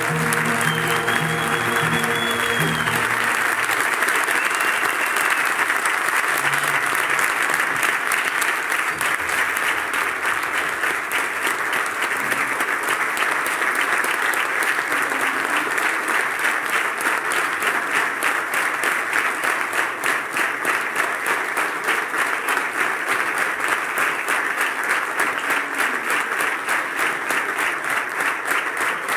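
An audience applauds, with the wind band's final held chord dying away in the first few seconds. The clapping then carries on steadily and grows more regular toward the end.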